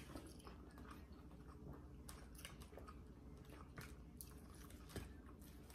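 Faint eating sounds at a table: quiet chewing and a handful of light, scattered clicks of forks and knives on plastic plates.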